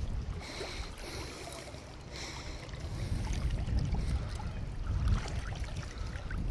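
Wind buffeting the microphone in a low, uneven rumble, over choppy water lapping around a wading angler.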